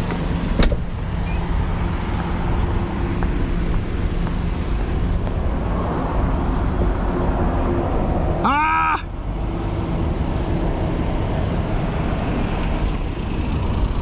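Steady rumble of road traffic with a low hum, broken by a sharp click about half a second in and, about eight and a half seconds in, a brief pitched squeal that rises and falls.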